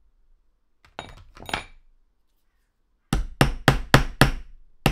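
A small hammer tapping a pin punch in quick, even strokes, about four a second, to drive a pin out of an Air Arms CD air rifle trigger block. The taps start about two-thirds of the way in; two lighter clicks come about a second in as the punch is set on the pin.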